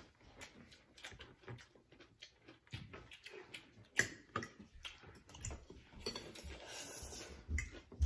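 Tableware eating sounds: chopsticks and a fork tapping and clicking against bowls and plates in irregular, scattered clicks, with a longer hissy stretch of noodle slurping near the end.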